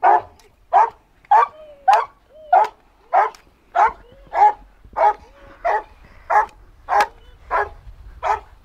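A hunting dog barking steadily and rhythmically, about one and a half short barks a second.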